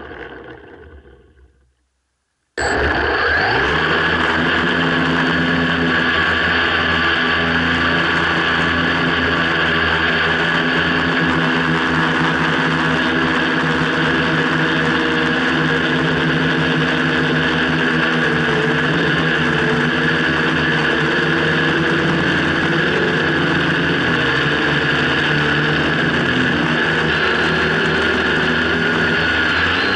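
Quadcopter's electric motors and propellers, heard from the camera mounted on the craft. The sound dies away to silence at the start, then comes in again abruptly about two and a half seconds in and runs as a steady hum made of several pitches.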